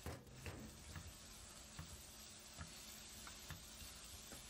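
Faint, irregular light clicks and taps from a wok of shrimp and vermicelli cooking on a gas burner, about seven spread over a few seconds, with a slightly louder knock at the very start, over a steady faint hiss.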